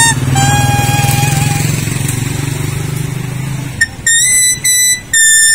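A leaf held to the lips and blown like a reed, playing a melody in long, held whistling notes. A passing vehicle's engine hums underneath for the first four seconds or so. After that the leaf notes come louder and higher, with short breaks between them.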